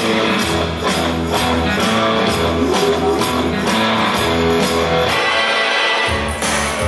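Music with guitar and a steady beat; the bass drops out briefly near the end, then comes back in.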